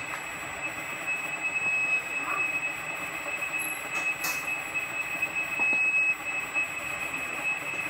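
Bridgeport mill spindle turning at about 500 RPM while a half-inch lathe tool bit takes a light finishing pass across the bottom of the spindle nose, with a steady high-pitched squeal over the running machine.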